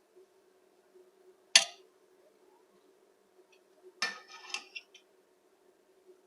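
Metal serving utensil knocking against cookware while plov is dished out: one sharp clink about one and a half seconds in, then a short clatter of several knocks about four seconds in.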